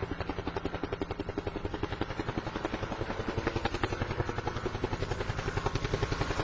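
Rapid, even rotor chopping like a helicopter, about eight beats a second, growing slightly louder toward the end.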